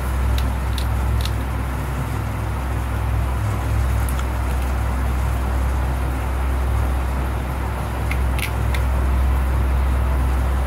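A steady low background hum. A few faint clicks come from small screws being driven back into a tablet's housing with a screwdriver.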